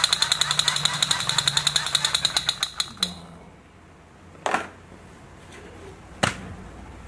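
Toy pistol's rapid-fire rattle, about ten clicks a second over a steady high-pitched whine, stopping suddenly about three seconds in. Then two single sharp knocks of plastic toy guns being handled.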